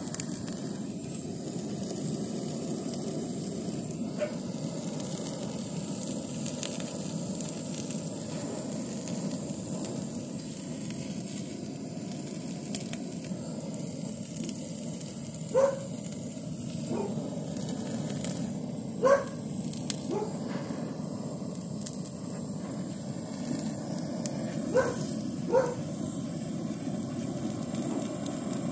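Butane blow torch flame burning steadily against raw chicken skin, a continuous low rushing hiss. In the second half, a few short high-pitched squeaks come in pairs over it.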